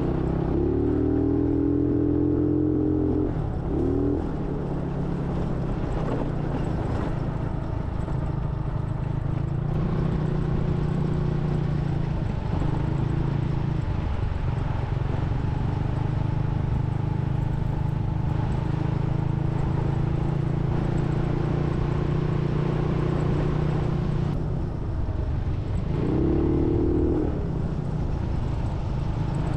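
An engine running steadily at a constant speed, with a higher whine that swells briefly near the start and again near the end.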